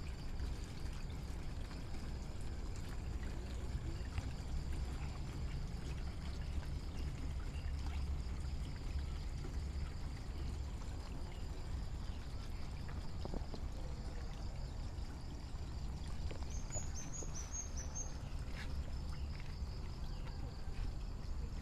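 Water running steadily into a tarpaulin-lined frog pond, a continuous pouring splash.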